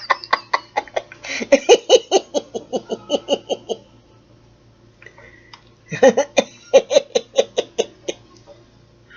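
A woman laughing in two bouts of quick, evenly repeated ha-ha pulses, with a short pause between them.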